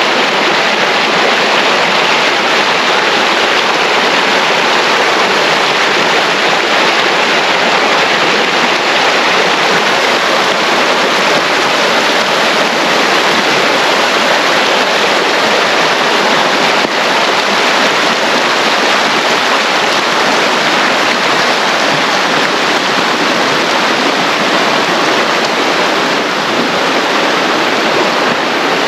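Loud, steady rushing noise with no rhythm or distinct events.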